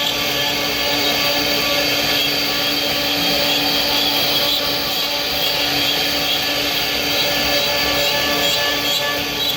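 A woodworking machine running steadily, a constant whine over a noisy hiss that does not change.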